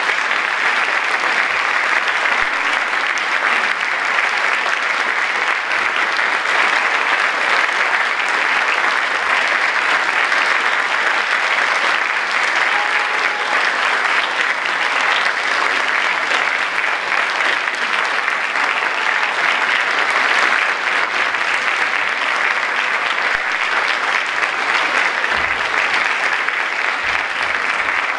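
Audience applauding, a dense, even clapping that goes on without a break.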